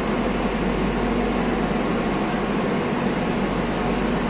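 Steady hum of a Madrid Metro train standing at an underground platform, its onboard equipment running, with a constant low tone and no change in level.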